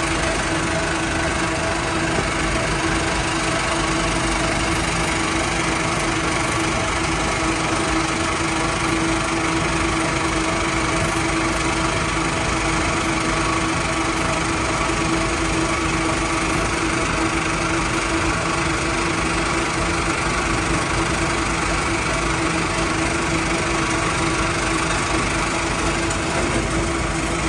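Biomass pellet plant machinery running steadily: a constant mechanical drone with a steady hum and no change in pace.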